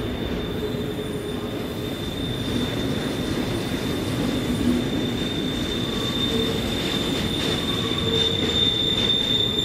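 Canadian National double-stack container train rolling through the cloverleaf curve: its wheels squeal with a steady high whine, and a lower squeal comes and goes, over the rumble of the passing cars.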